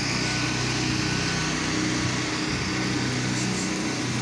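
Small gas engine of a belt-driven pressure washer running steadily at constant speed.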